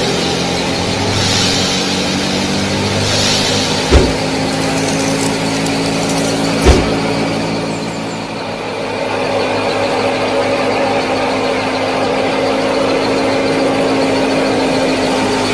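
Small motor of a model mini tractor and thresher running steadily, with two sharp knocks about four and seven seconds in. After about eight seconds a higher whine joins the steady running.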